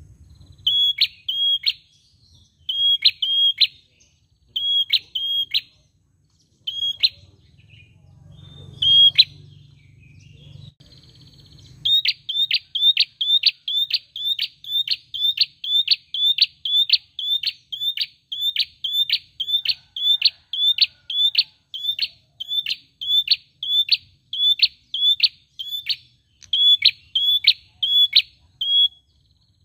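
Caged prenjak songbird calling: sharp, high, repeated notes, at first in short pairs with pauses, then from about halfway a long steady series of roughly two notes a second.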